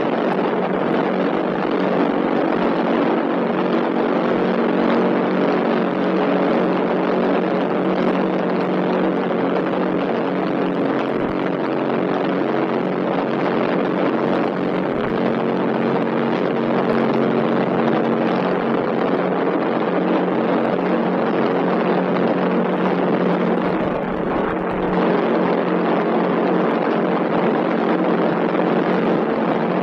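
A loud, steady mechanical drone with several held tones over a noisy hiss, like an engine running, dipping briefly about 24 seconds in.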